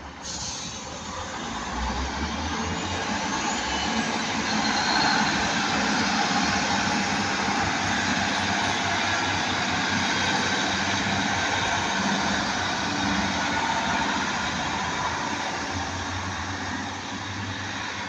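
A train passing close by: a rushing noise of wheels on rail that swells over the first few seconds, holds, then slowly fades.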